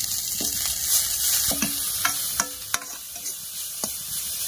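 Neem flowers sizzling in hot oil in a steel kadai while a steel ladle stir-fries them. The ladle clinks and scrapes against the pan several times, each clink ringing briefly.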